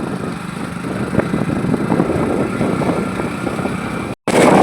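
Steady rushing noise of heavy rain pouring down, broken off by a sudden brief dropout near the end.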